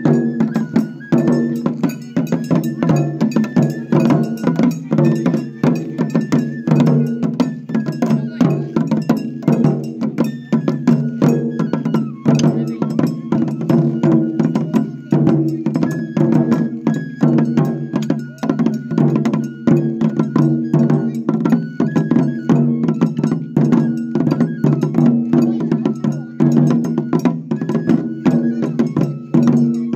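Japanese festival hayashi: rapid, continuous stick strokes on two rope-tensioned shime-daiko drums on a festival float, with a bright, clacking beat and a high melody line that steps between a few notes above the drumming.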